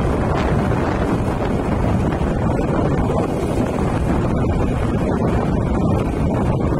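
Steady wind buffeting the microphone of a moving vehicle's camera, a loud, even rush with no breaks.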